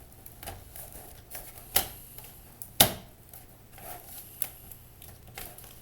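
Plastic bottom cover of a Lenovo IdeaPad S500 laptop being handled and fitted onto the chassis: a string of light plastic clicks and taps, with two louder clicks around the middle.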